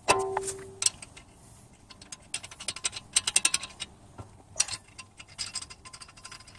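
Resurfaced steel brake rotor being handled on the wheel hub: a sharp metallic clink that rings briefly at the start, then several runs of rapid light metallic clicking as hands work at the hub and wheel studs.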